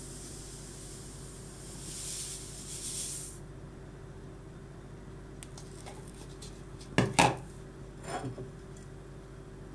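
Granulated sugar pouring into a glass blender jug, a hiss that swells and stops about three seconds in. About seven seconds in, a few sharp clattering knocks of dishes being handled, with one more a second later.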